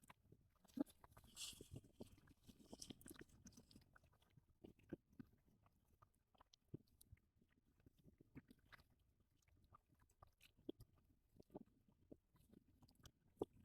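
Near silence with faint, irregular small clicks and ticks.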